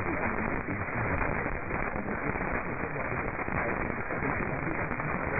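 Radio static: a steady hiss with a few faint crackles, on a weak, narrow-band radio reception with no programme audio.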